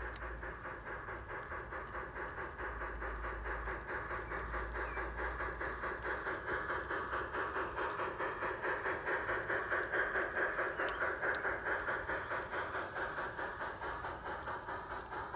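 G-scale LGB model train running past on garden-railway track: the motor and wheels make a steady sound with a quick even beat of about four a second, growing louder towards the middle as the locomotive and coaches go by, then easing off.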